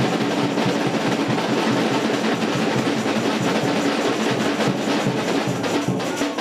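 Drums playing a dense, fast, steady beat.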